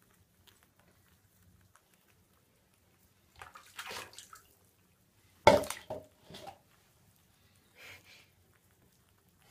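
Water splashing in a bathtub as pet rats move about in shallow bath water, in a few short bouts, the loudest a sudden splash about halfway through.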